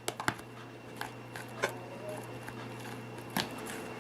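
Hands mixing and kneading slime in a bowl, giving irregular sticky clicks and snaps over a steady low hum.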